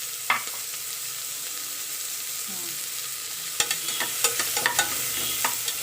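Chopped onion sizzling in hot oil in a pressure cooker pot, a steady hiss. A spatula knocks against the pot once early, then stirs with a run of quick clicks and scrapes from about three and a half seconds in.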